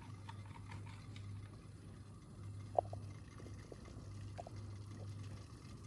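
Steel steamer pot on the boil, a faint steady low hum under a few light clicks, the sharpest about three seconds in.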